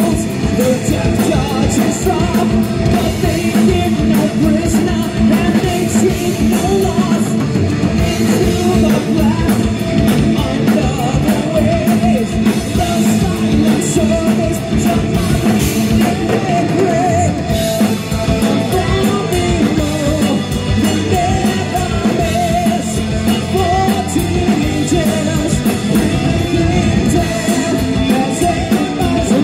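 Heavy metal band playing live: a singer's vocals over electric guitars and a drum kit.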